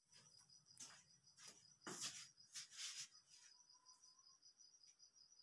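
Faint, high, steady pulsing trill of a cricket throughout. A few soft rustles fall in the first three seconds, the loudest about two seconds in.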